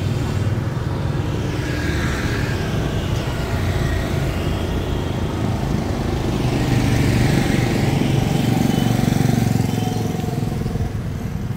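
Motorbike and scooter traffic passing along a street, engines rising and fading as they go by, loudest between about seven and nine seconds in.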